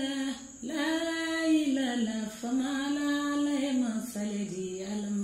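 A high voice singing unaccompanied, a slow melody in held phrases of a second or two each, with short breaks between them.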